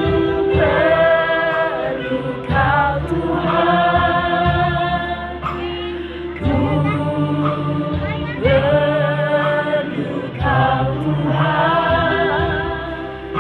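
Group of voices singing a Christian worship song in long held phrases over instrumental accompaniment.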